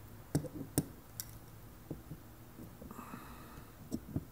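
Faint clicks and taps of a steel digital caliper being slid and set against a metal bar: a few in the first second and a half, then two more near the end.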